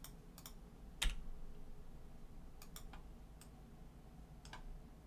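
Scattered clicks from a computer mouse and keyboard, about seven in all, the loudest about a second in.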